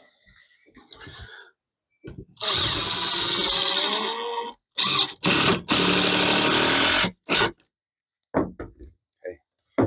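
Power drill driving a Torx-head screw into wood: one long run of about two seconds, then several short bursts as the screw is driven home.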